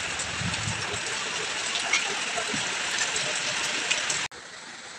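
Steady rain falling, with water streaming off the edge of a corrugated roof and scattered drips. A little after four seconds in it drops suddenly to a quieter, even hiss.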